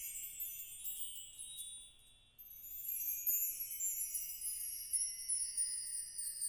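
Small metal percussion instruments played by a percussion ensemble in a dense, high, tinkling shimmer. It thins almost to nothing about two seconds in, then builds back up.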